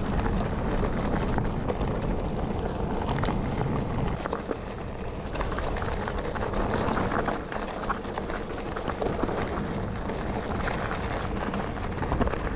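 Mountain bike rattling down a steep, rocky slope at speed: a steady rush of noise with many sharp knocks and clatters from the bike jolting over stones.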